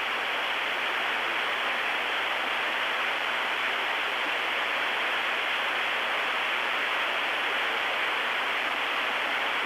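Steady static hiss from a NOAA weather radio receiver. It is dead air on the broadcast during a gap in the live test announcement.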